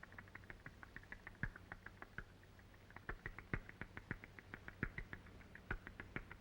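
Barn owl nestlings giving a rapid run of short, high squeaking begging calls, several a second, the sign of hungry chicks calling for food. Faint, with scattered sharp clicks over it.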